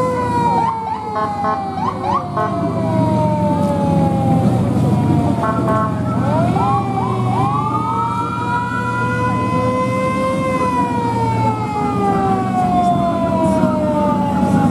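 Several emergency-vehicle sirens sounding together, their pitch slowly falling and rising in long wails. Quick whooping yelps come about a second in and again around six to seven seconds in, over a steady low engine rumble.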